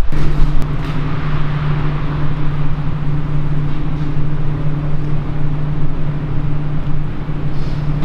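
Steady low mechanical hum at one fixed pitch, over a bed of noise.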